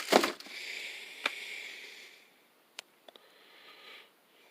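A sniff, then light handling noise from the socket set: a rustle lasting about two seconds and a few small sharp clicks.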